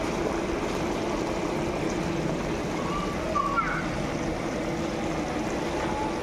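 Chilli sauce simmering in a wok over a gas flame: a steady rushing, bubbling noise.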